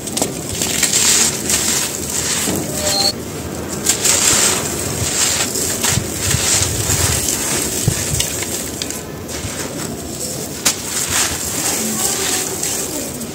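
Hands crushing and crumbling dry, dusty cement shapes: irregular gritty crunches, with fine powder and grit falling away between them.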